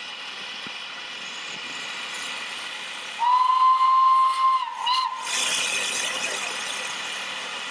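Steam locomotive's whistle sounding one long steady note about three seconds in, then a short second toot, followed at once by a loud rush of escaping steam that slowly fades over a steady background hiss.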